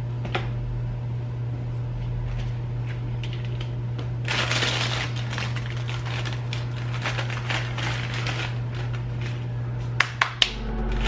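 Hands preparing food at a kitchen counter: a steady low hum throughout, about two seconds of noisy handling some four seconds in, and three sharp knocks near the end.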